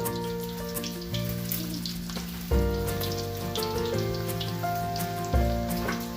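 Pork frying in hot oil, spitting and crackling with many quick pops, under background music with sustained chords that change every second or so.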